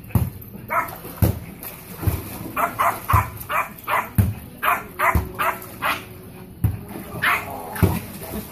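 Yorkshire terrier barking over and over in short, sharp, high barks, about one or two a second.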